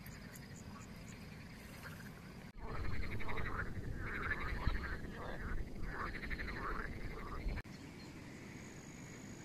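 Frogs croaking: a chorus of rapidly pulsed, rattling calls over a low rumble, cutting in sharply about two and a half seconds in and cutting off about five seconds later. Before and after, only a faint steady outdoor background.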